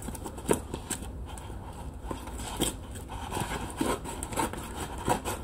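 A large mailing envelope being cut open by hand: irregular short clicks and scrapes of the blade going through the paper.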